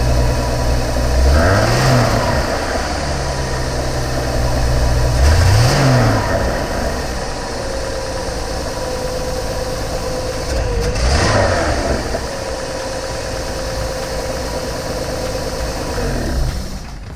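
1984 Ford F-150's 300 cubic-inch inline-six running at idle, revved briefly three times (about two, six and eleven seconds in), each time dropping straight back to idle.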